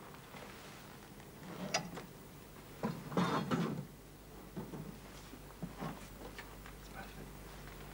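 Heavy curtains pulled aside along their rail: a scraping, rustling slide about three seconds in, with a few light clicks and knocks before and after.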